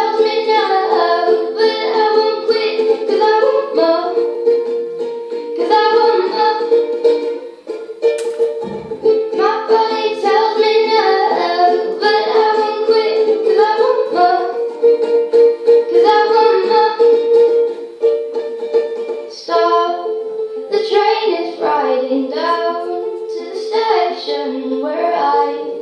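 Ukulele played through a microphone, with a girl singing over it; a steady note sounds underneath, and the music drops briefly about eight seconds in.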